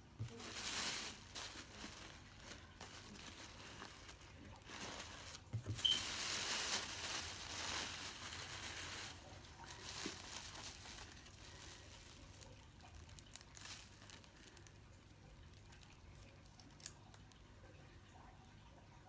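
Tissue paper and plastic packaging crinkling and rustling as they are handled. It is loudest in two spells of a few seconds in the first half, then turns into quieter rustles and small clicks.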